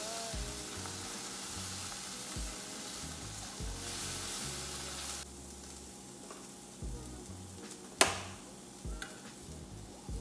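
Tempeh slices sizzling in hot oil and soy sauce in a nonstick frying pan as a spatula turns them; the sizzle is loudest for about the first five seconds, then dies down. A single sharp knock comes about eight seconds in.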